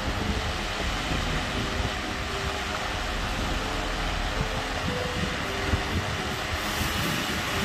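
Electric fan running steadily: a constant rushing of air, with its draught buffeting the microphone in a low, uneven rumble.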